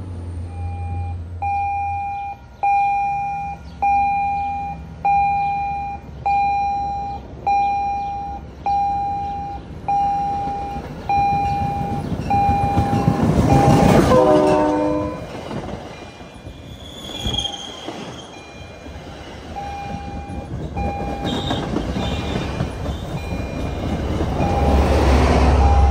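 MBTA diesel commuter train pulling in, its bell struck about once a second. The train is loudest about halfway, with a brief cluster of horn-like tones. Coaches roll past with wheel noise and the bell still ringing more faintly, and a diesel locomotive's low engine rumble rises near the end as it comes by.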